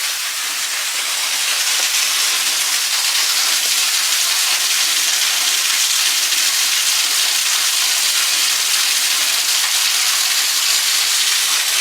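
Steady rushing hiss of water, even throughout.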